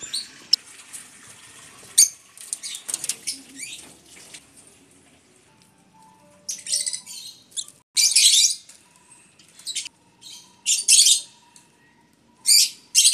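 Peach-faced lovebirds giving shrill, harsh chirps in short bursts. The loudest bursts come in clusters in the second half.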